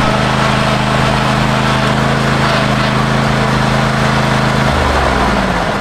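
Small engine running loud at a high, steady speed, then winding down and dropping in pitch near the end as it is throttled back.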